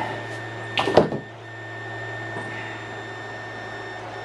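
Steady hum of a 3D printer's fans and electronics, with a brief clunk and rustle about a second in from hands working on the printer's Bowden tube and cables.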